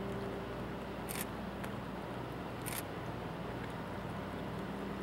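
Car ferry's engines running with a steady low drone as it approaches to berth. Two brief sharp clicks cut through, about a second in and again near the middle.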